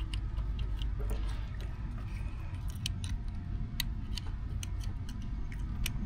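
Scattered small clicks and ticks of wire spade connectors being pushed onto the terminals of a replacement three-pole contactor, over a steady low hum.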